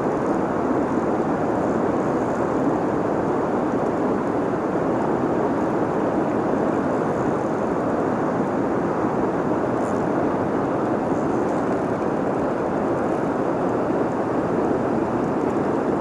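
Steady roar of floodwater rushing over and below a dam, an even rushing noise with no let-up.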